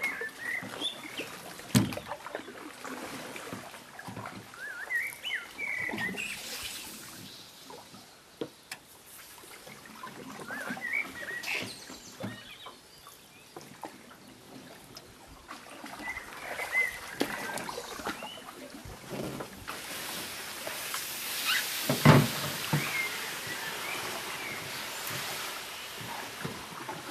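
Canoe being paddled: the paddle dipping and splashing, water dripping, and a couple of sharp knocks on the hull, the loudest about two-thirds of the way through. Toward the end the bow pushes into reeds, which brush along the hull. Birds chirp now and then.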